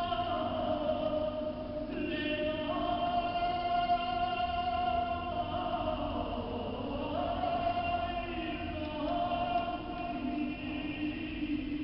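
Archival tape recording of synagogue service singing, played back through a laptop's speaker: long held sung notes that slide from one pitch to the next.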